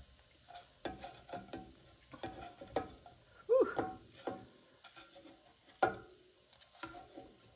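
Slotted spatula clicking and scraping against a nonstick skillet as browned biscuit pieces are turned over, an irregular run of light taps and knocks.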